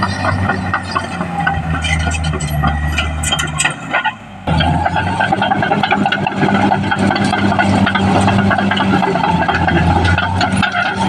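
Caterpillar D6R XL bulldozer's diesel engine running steadily, with a constant rattle of clicks and clanks over it. The sound drops out for about half a second about four seconds in, then carries on.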